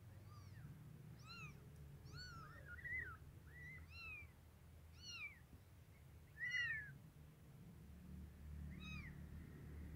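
Newborn kittens mewing: about ten short, high, thin cries, each rising then falling in pitch, the loudest about six and a half seconds in.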